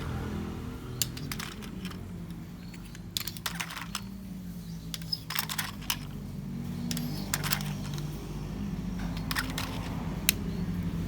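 Hard plastic transforming toy robot being handled, its parts clicking and knocking in small clusters of sharp ticks, over a low steady hum.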